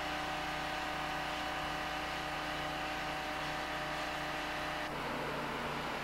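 Asphalt paving machinery engines running at a steady drone. The tone shifts slightly about five seconds in.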